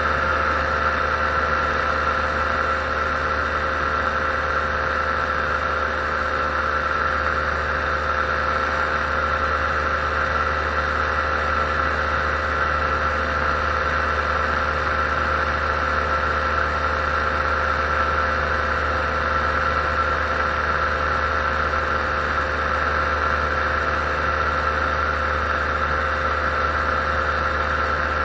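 Paramotor engine and propeller running steadily at constant cruise throttle in level flight, a continuous droning hum with no change in pitch.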